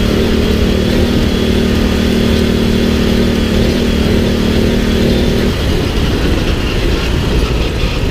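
Off-road buggy's engine running loud and close while driving over a dirt track; its steady engine note gives way to a rougher, unsteady sound about five and a half seconds in.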